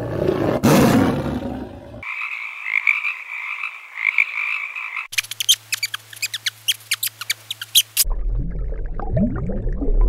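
A white tiger growls for about two seconds, followed by a steady high trilling call. A rat then gives a rapid run of sharp high squeaks and clicks, and near the end comes a low rumbling with short gliding tones.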